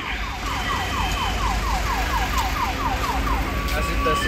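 An electronic siren or alarm sounds a fast run of falling chirps, about five a second. Near the end it switches to a steady beep.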